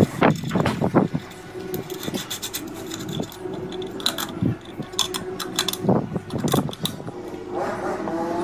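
Metal clinks, knocks and scrapes of nuts, washers and a wrench working on a threaded steel rod as the nuts are tightened, irregular and sharp, over a steady low hum.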